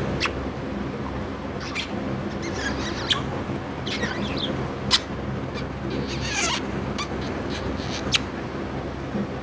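White budgerigar chattering softly in short high chirps, with several sharp kissing smacks, the loudest about five seconds in, over a steady low hum.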